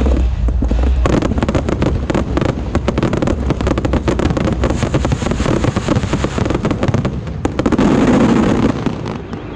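Aerial fireworks going off in a dense, rapid run of cracks and pops, with a deep boom at the start; the barrage dies away near the end.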